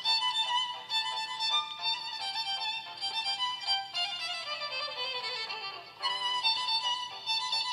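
Instrumental ringtone melody whose notes slide down in pitch over about two seconds from four seconds in, dipping briefly near six seconds before the tune picks up again.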